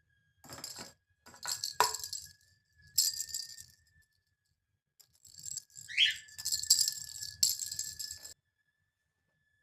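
A small rattle ball toy shaking and rolling in irregular bursts of rattling, with a short rising cockatiel chirp about six seconds in.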